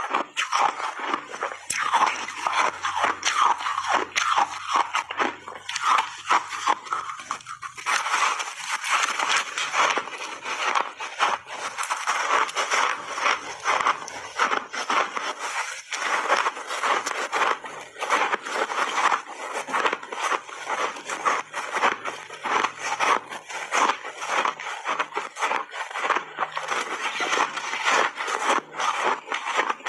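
Close-miked chewing of refrozen mixed-berry ice chunks: teeth crunching through the hard ice in a dense, continuous run of crackling crunches.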